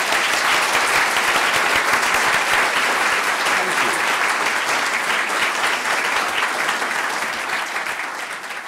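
Audience applauding a speaker, a dense steady clapping that fades gradually toward the end.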